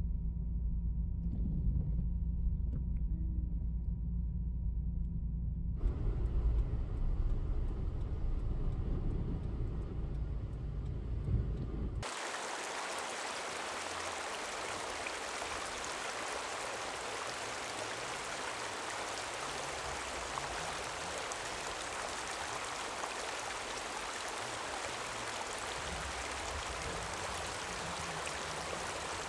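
Steady low road and engine rumble inside a moving car. After about twelve seconds it cuts off abruptly and is replaced by the steady rushing hiss of flowing water.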